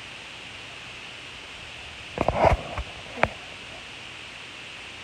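A short cluster of knocks and bumps about two seconds in, then a single sharp click, over a steady hiss.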